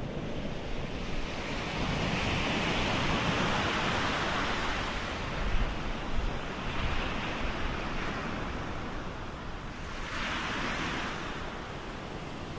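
Sea waves washing under wind: a steady rushing that swells and eases several times.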